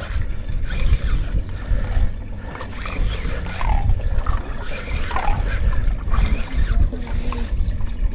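Wind buffeting the microphone with water slapping against a small boat's hull: an uneven low rush that rises and falls in gusts.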